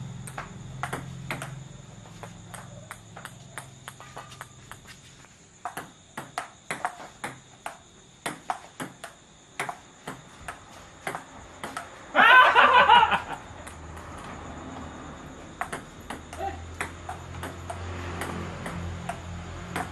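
Table tennis rally: the plastic ball clicking off the bats and bouncing on the Powerspin 200 table top, about two hits a second in runs with short breaks. About twelve seconds in, a person's voice calls out loudly for about a second.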